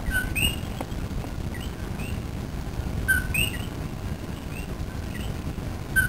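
Common coquí frogs calling their two-note "co-QUI": a short lower note followed by a higher rising one. The loudest frog calls about every three seconds, with fainter coquís calling in between, over a steady low rumble.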